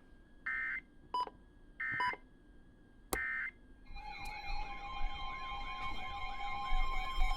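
Three short Emergency Alert System digital data bursts, the SAME end-of-message code, each a fraction of a second long and about a second apart. About four seconds in, alert attention tones start: several steady tones sounding together, with a siren-like sweep that rises over and over, a little more than twice a second.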